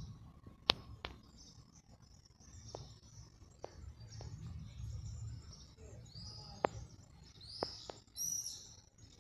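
Garden birds chirping and calling, in short high notes that grow busier near the end, over a low background rumble. Several sharp clicks come through as well, the loudest about a second in and near seven seconds.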